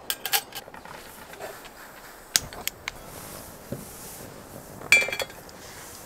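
Camp cookware and utensils clinking and tapping while coffee is being set up: a few light clicks and knocks, then one louder clatter with a brief metallic ring about five seconds in.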